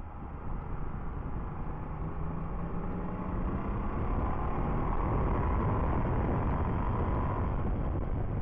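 Motorcycle riding at speed, heard from a fork-mounted camera: a constant rush of wind and road rumble, with the engine's whine climbing in pitch as the bike accelerates and growing louder from about three seconds in to near the end.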